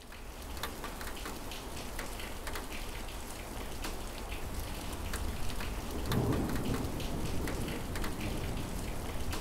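Rain falling steadily with scattered drips, fading in at the start. A low rumble of thunder comes about six seconds in.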